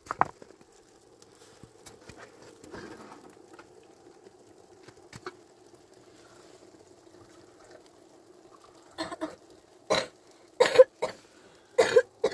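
A person's voice in several short, loud bursts during the last few seconds, over a faint steady hum.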